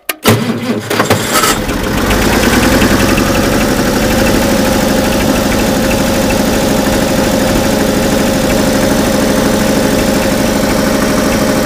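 Oliver 770 tractor's six-cylinder engine cranking briefly on a low battery with a shot of ether starting fluid, catching about a second and a half in and settling into a steady idle.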